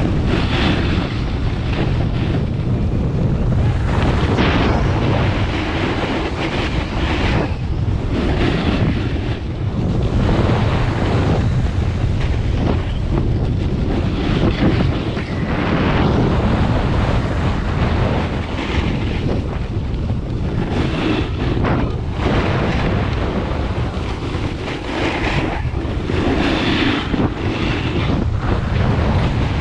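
Wind buffeting a helmet-mounted GoPro's microphone at around 17 to 21 mph, with a snowboard's edges scraping and hissing across packed snow in a swish every second or two through the turns.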